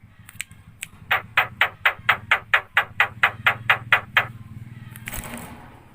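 Javan myna (jalak kebo) giving a rapid series of about a dozen short calls, about four a second, followed by a brief rustling noise near the end.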